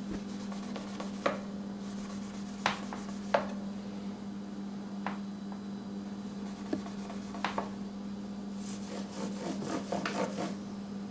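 Cloth rubbing and wiping over a solid-body electric guitar while it is cleaned, with several sharp clicks and taps and a busier stretch of rubbing near the end, over a steady low hum.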